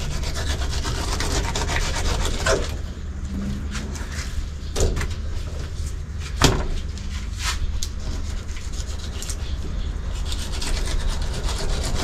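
Flexible filleting knife sawing between skin and flesh of a nannygai fillet on a plastic cutting board, a continuous rasping scrape, with a few sharp knocks.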